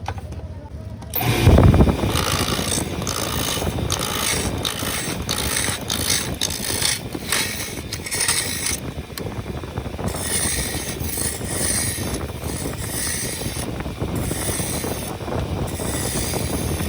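A power tool cutting and shaping wood, starting about a second in and continuing as a dense, uneven scraping and rasping.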